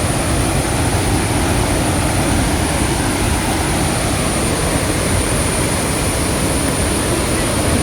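Loud, steady roar of Athirappilly Falls in heavy flow: an even rushing of falling water that does not let up.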